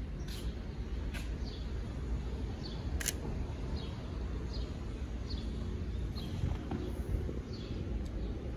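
Sony a7 III camera shutter clicking a few times, the sharpest about three seconds in, over a bird's short falling chirps repeated about once a second. A steady low background rumble runs underneath.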